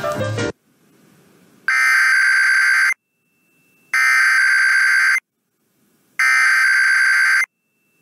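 Music cuts off, then an Emergency Alert System SAME header for a Required Weekly Test, broadcast over FM radio: three identical bursts of digital data tones, each a little over a second long, with about a second of near quiet between them.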